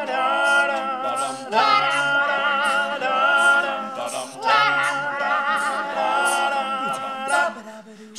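Six male voices singing a cappella in close harmony, holding long sustained chords: a new chord swells in about every three seconds, and the last dies away near the end.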